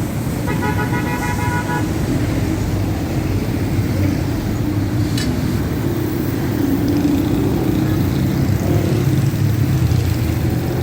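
A vehicle horn honks once for about a second and a half near the start, over a steady low mechanical rumble like traffic or a running machine, with a single sharp click midway.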